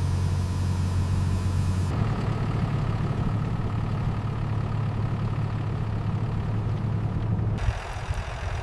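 Heavy truck's diesel engine idling with a steady low hum; the higher background hiss shifts abruptly about two seconds in and again near the end.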